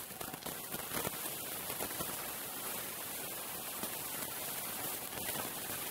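Steady hiss of background noise, with a few faint clicks.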